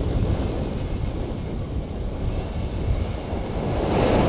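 Wind buffeting the camera's microphone from the airflow of a paraglider in flight: a steady low rumbling rush that swells louder near the end.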